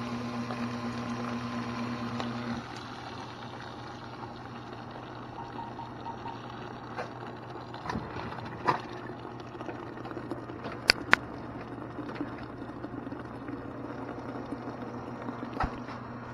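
Two-barrel FBD frozen-beverage (Slurpee) machine running with a steady hum that cuts off suddenly about two and a half seconds in, leaving a quieter steady background. A few clicks follow, the loudest a sharp pair near the middle.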